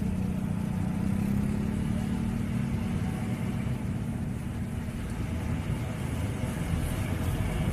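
Large tour bus's diesel engine running at low speed as the bus rounds a tight bend, a steady low drone that rises slightly in pitch a second or two in and then settles.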